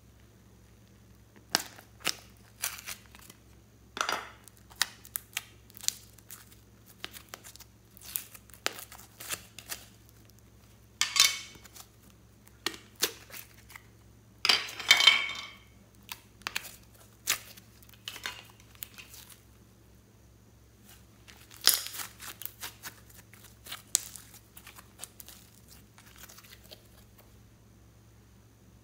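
Slime being pressed and stretched by hand, giving an irregular run of sharp crackling pops and clicks, with two longer crackling squelches around the middle.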